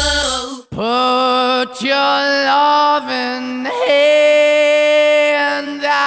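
Music: a hip-hop track with a heavy bass beat cuts off about half a second in, and a slow piece of long held, sung or chanted notes begins, each note held for about a second before moving to the next.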